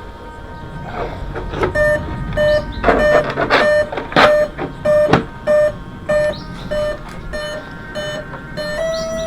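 Electronic beeper sounding a steady series of short identical beeps, about three every two seconds, finishing with one slightly longer tone. Brief bird chirps and some clicks and handling rustles can be heard under it.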